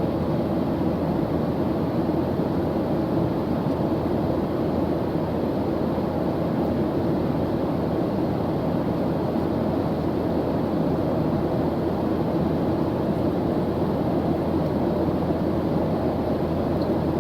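Airplane engine noise: a steady, even rushing drone, strongest in the low and middle range, with no change in level.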